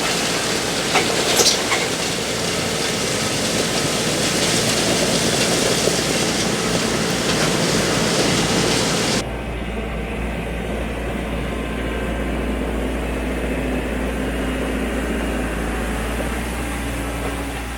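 Compact tractor running while it drags a land plane over the driveway, with a steady engine hum under a loud grinding rattle. About nine seconds in the rattle stops suddenly, leaving the engine hum alone.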